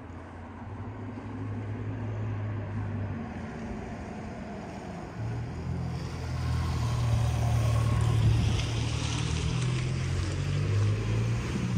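A motor vehicle's engine running with a steady low drone, growing louder about halfway through.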